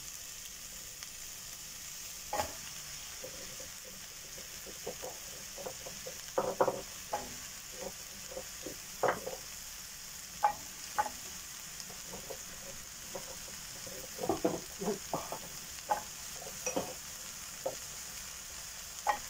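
Beef browning in an enamelled casserole pot, sizzling steadily, with scattered soft knocks as chunks of courgette and carrot are dropped into the pot.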